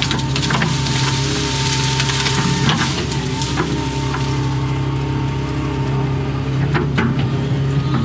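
Doosan excavator's diesel engine running steadily under load with a steady hydraulic whine, while wood cracks and crunches in sharp snaps as the machine works at trees.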